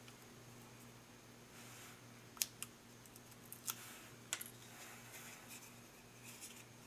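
Faint handling sounds of fingers peeling the paper backing off small round adhesive foam pads and pressing them onto a circuit board: soft rustles and a few short, sharp clicks in the middle. A low steady hum runs underneath.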